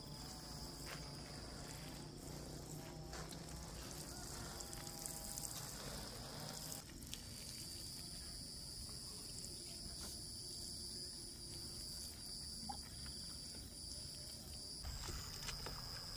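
Faint, steady high-pitched drone of insects chirring.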